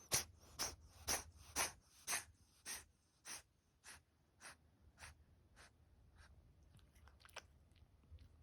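A cat sneezing in a rapid run, about two short sneezes a second, each a little fainter than the last, tapering off into a few faint ones near the end.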